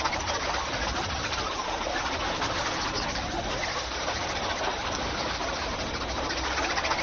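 Coloured pencils scratching and shading across paper in a dense, continuous scratching, with a low hum underneath.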